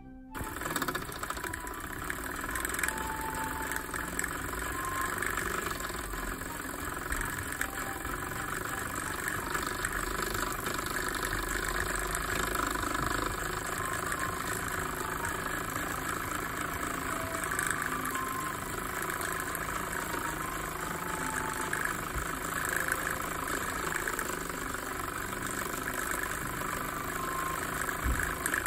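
Bowman E158 model live-steam engine running steadily, a fast even beat of exhaust steam over a constant hiss.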